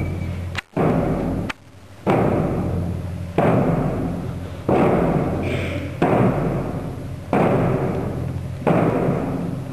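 A drum ensemble striking large barrel drums together in unison, one heavy stroke about every 1.3 seconds, each ringing on in the hall's reverberation before the next. Two sharp clicks come before the first stroke.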